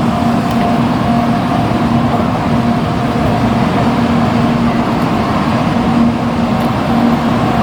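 Steady rumble of a running vehicle, even in loudness, with faint tones that come and go.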